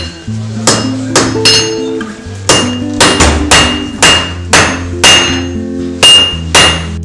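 Blacksmith's hand hammer striking a red-hot iron bar on an anvil: about a dozen ringing blows, roughly two a second, with a short pause about two seconds in.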